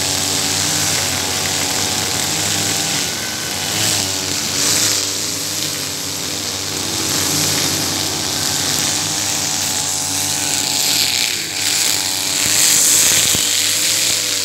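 Husqvarna 542RBS 42cc backpack brush cutter's two-stroke engine running at high revs, its pitch sagging and recovering several times as the 2.4 mm square nylon line bogs in thick, tall grass. A steady hiss of the line slicing through the stems runs under it, loudest near the end.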